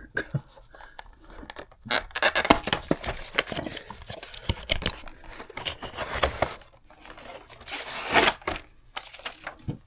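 Gift wrapping paper being torn and crumpled off a cardboard box: irregular ripping and rustling with sharp crackles, starting about two seconds in and dying away near the end.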